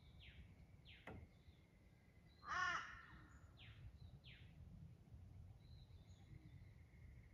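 Forest birds at dawn: one loud, harsh crow-like caw about two and a half seconds in, among several short whistles that slide down in pitch and a thin steady whistled note early on.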